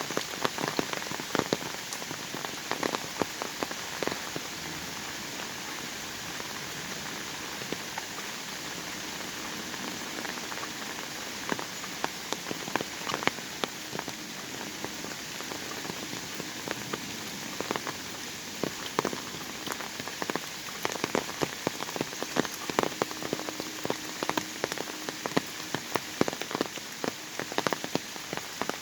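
Autumn rain falling in a forest: a steady hiss of rain with many close, sharp drops pattering on top. The drops come thick at first, thin out through the middle, and grow dense again in the last third.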